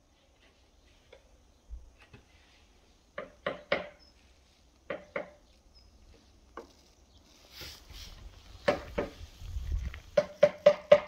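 Sharp knocks in short groups as yellow clay (hwangto) bricks are tapped into place while a wall is laid: two or three taps at a time, then a quick run of about five near the end.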